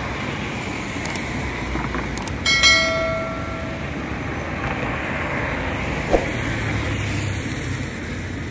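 Steady noise of road traffic passing on a bridge. A couple of short clicks come about one and two seconds in, followed by a single bell-like ding that rings for about a second: a subscribe-button sound effect. A short thump comes about six seconds in.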